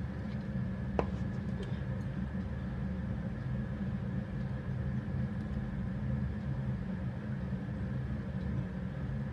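Steady low mechanical hum, with one light tap about a second in.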